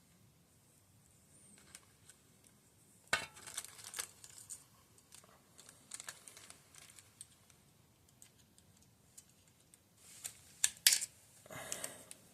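Light metallic clicks and rattles of small parts being fitted by hand onto a motorcycle gear shift lever: its springs and washers. A sharper click comes about three seconds in, with another cluster of clicks near the end.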